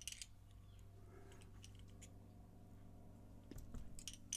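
Near silence over a low steady hum, with a few faint small clicks at the start and again near the end: lock pins and springs being handled as a pin-tumbler lock is gutted.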